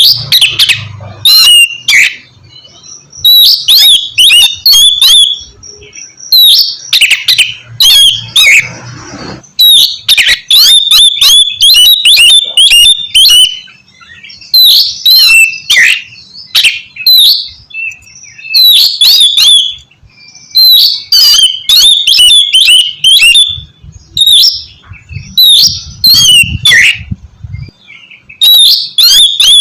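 Oriental magpie-robin (kacer) singing a loud, varied song of rapid whistled and sweeping notes in repeated bursts, with short pauses between the phrases.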